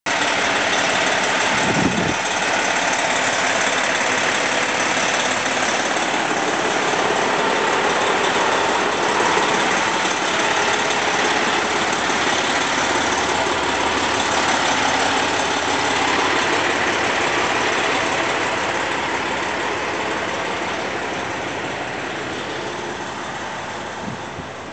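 Pierce fire engine's diesel engine idling with a steady rumble and hiss, with a brief low thump about two seconds in; the sound grows gradually fainter over the last several seconds.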